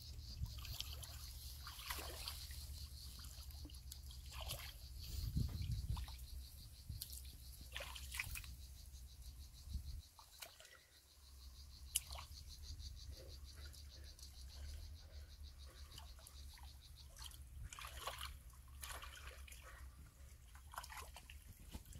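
Faint, scattered splashes and trickles of shallow muddy water stirred by a person wading and groping through it with her hands.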